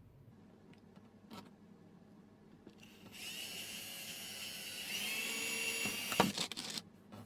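Electric drill boring through a bamboo tray: a steady high whine that starts about three seconds in and stops just before the end, with a sharp knock about six seconds in.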